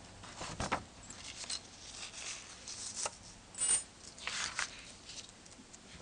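Faint handling sounds: a sheet of paper rustling as it is put down, with scattered small clicks and a brief metallic clink, such as a key on its ring.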